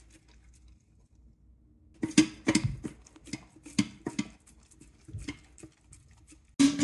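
A dog eating raw ground chicken food from a stainless steel bowl: irregular wet smacks and clicks of chewing and licking, starting about two seconds in. Just before the end, louder guitar music comes in.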